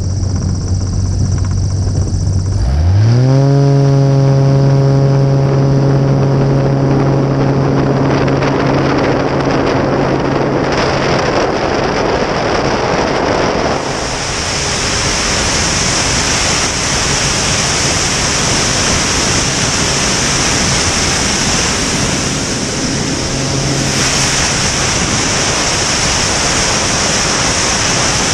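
Single-engine aerobatic plane's piston engine and propeller idling, then run up sharply to full takeoff power about three seconds in and held steady. From about halfway on, a strong rushing of wind over the wing-mounted microphone builds with airspeed and mostly covers the engine as the plane accelerates and lifts off.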